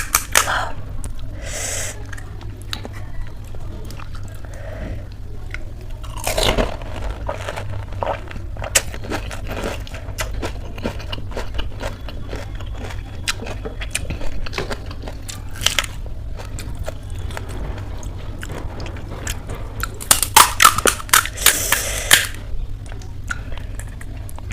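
Close-up crunching and chewing of pani puri (golgappa): the crisp fried puri shells crackle between the teeth, then softer chewing. Loud bursts of crunching come about six seconds in and again near the end, over a faint steady low hum.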